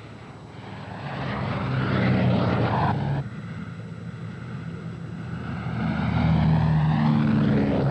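Four-engine propeller drone of B-29 Superfortress bombers, from their Wright R-3350 radial engines, as the aircraft take off and pass low overhead. The drone swells, breaks off abruptly about three seconds in, then builds again to its loudest near the end as a second bomber passes.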